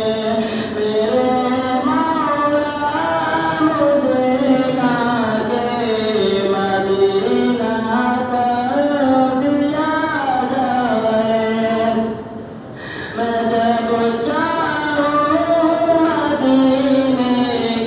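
A single voice singing a slow melody of long, held, gliding notes, with a brief pause for breath about twelve seconds in.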